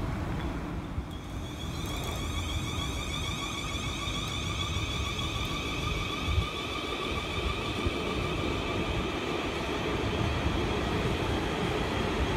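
Electric multiple unit train moving slowly along a platform: a steady multi-tone electronic whine from its traction equipment starts about a second in, over a low rumble of wheels on rail, growing slightly louder toward the end.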